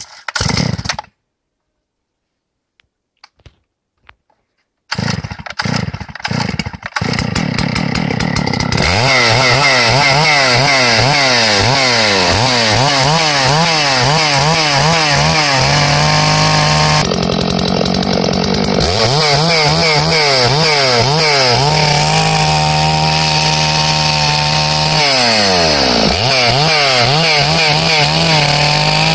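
Farmertec G660 two-stroke chainsaw being started: a few seconds of starter pulls and sputtering, then the engine catches and runs. It is revved up and down over and over, and near the end the chain cuts into a pine log.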